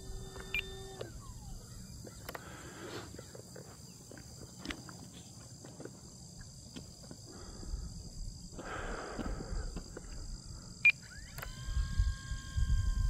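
FMS Cessna 182 RC plane's electric motor whining, cutting off about a second in, then coming back on near the end and stepping up in pitch as the throttle opens. In between there is a steady high insect chirring and low wind rumble on the microphone.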